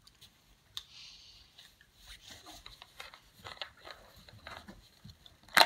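Handling noise from a plastic toy and its packaging: scattered small clicks, taps and crinkly rustles, with one sharp, loud click near the end.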